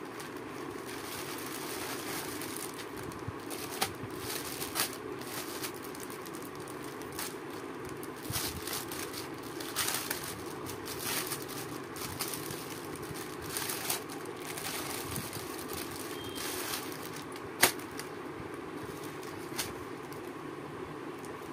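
Plastic packaging rustling and crinkling in irregular bursts as a poly courier mailer and a clear plastic cover are handled and opened, with one sharper crackle a few seconds before the end. A steady low hum runs underneath.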